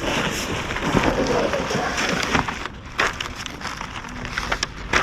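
Rustling and crackling handling noise, like parts being unwrapped from packaging, dense for the first two and a half seconds, then broken into a series of sharp clicks.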